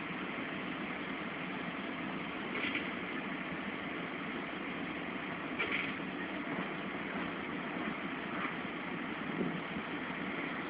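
An engine running steadily, with a few faint short sounds about three and six seconds in.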